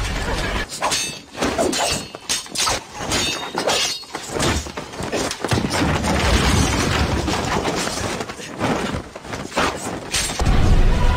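Action-film soundtrack effects: a dense, irregular run of crashes and impacts with glass shattering, ending in a loud deep boom near the end.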